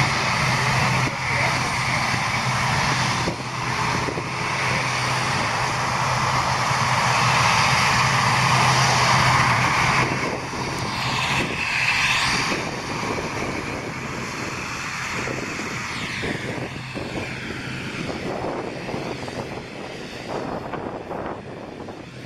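Twin turboprop engines of an ATR airliner running at high power: a loud steady drone with a low propeller hum, loudest about eight to ten seconds in, then fading steadily as the aircraft moves away.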